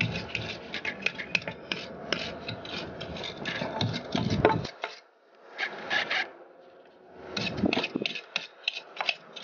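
Stiff-bristled hand brush scrubbing grime off the metal inside of a Mazda RX-8 manual transmission's bellhousing, around the input shaft, in quick back-and-forth strokes. The scrubbing runs for about four and a half seconds, stops, comes back in a short burst, pauses again, and picks up once more near the end.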